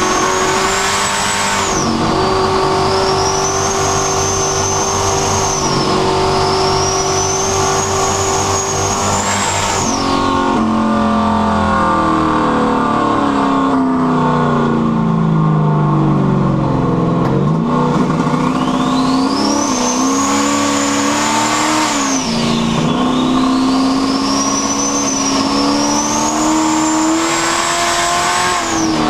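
Car engine fitted with a rear-mounted turbo, accelerating under boost, with a high turbo whistle that rises and falls over several pulls. About a third of the way in the driver lets off and the engine note sinks for several seconds, then the turbo spools up again and the car pulls hard once more.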